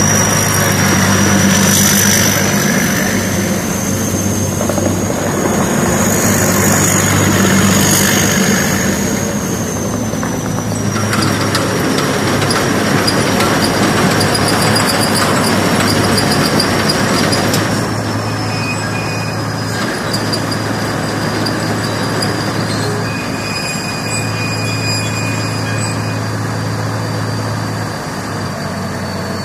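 Thai Seng Yont 'Chao Phayu' combine harvester running with its working mechanisms engaged: a steady mechanical drone under a thin, high whine that slowly sinks in pitch.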